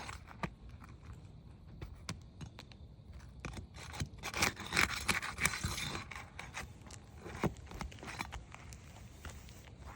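Asphalt roof shingles being pried up and worked loose: scraping and crackling with scattered sharp clicks, busiest about four to six seconds in, as the sealed tabs are broken free.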